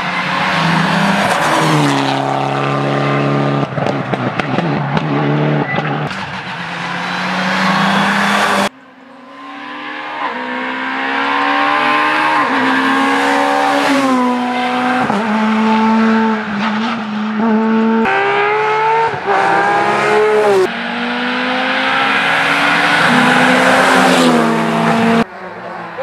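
Rally cars at racing speed, one after another. First a Mitsubishi Lancer Evo X engine revving hard and stepping down in pitch through downshifts into a corner, then other rally engines climbing in pitch and breaking off sharply at each gear change or throttle lift as they pass close.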